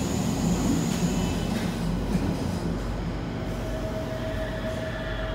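Rome Metro train running, heard from inside the carriage: a steady low rumble of wheels and running gear. A high thin whine stops about a second in, and a new electric whine comes in about three and a half seconds in.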